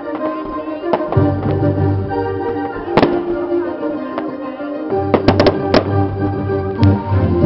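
Fireworks bursting with sharp bangs over loud music of sustained chords and a deep bass line. There is a bang about a second in, another at three seconds, a quick run of four around five seconds, and one more near seven seconds.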